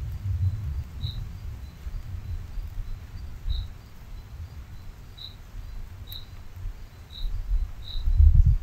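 Night ambience: a cricket gives six single high chirps, one to two seconds apart, over an uneven low rumble that swells loudest near the end.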